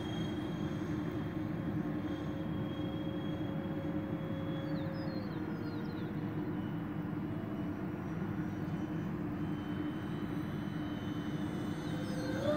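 Electric ducted fan of a Dynam Turbojet 550 RC jet in flight overhead: a steady whine over a hum. The whine steps slightly down in pitch about five seconds in.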